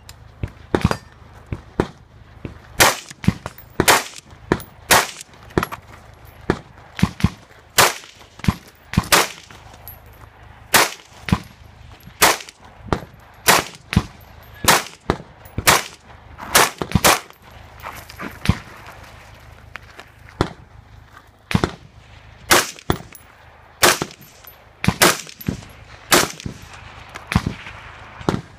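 Rifle shots fired in a long, uneven string, often in quick pairs, each with a short echo.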